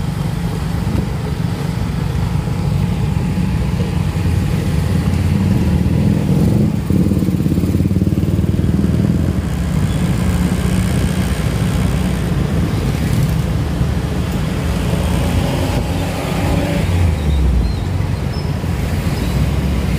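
Steady low rumble of riding a motorcycle along a road in traffic: the engine and wind buffeting the microphone, with other motorbikes and cars close by.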